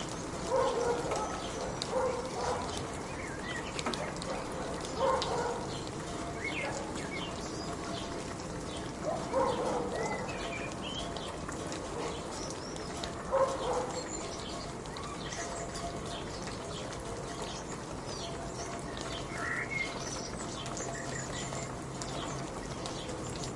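Steady rain hiss with birds calling over it: five short, lower calls in the first fourteen seconds and scattered high chirps, more of them in the second half.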